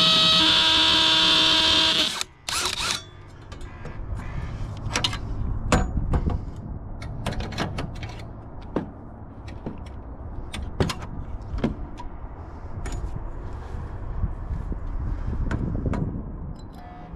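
Power drill running at steady speed to drive a screw, its pitch stepping up about half a second in, then stopping abruptly about two seconds in. After it, scattered clicks and knocks of handling.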